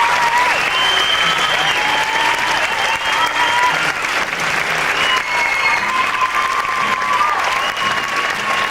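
Large audience applauding steadily, with shrill cheers and whoops held over the clapping.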